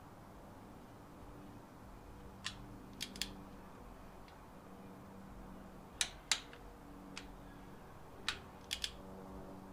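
Sharp metallic clicks from a hand wrench working bolts on the front of a Cummins 5.9 24V diesel engine, coming singly and in quick pairs, about nine in all, the loudest pair about six seconds in. A faint steady hum runs underneath.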